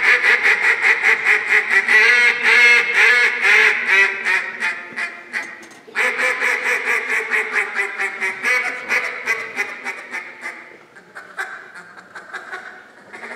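Hand-held duck call blown in fast, rhythmic strings of quacks imitating a live duck, about five quacks a second. One run breaks off and a fresh, loud run starts about six seconds in, and the calls become quieter and sparser toward the end.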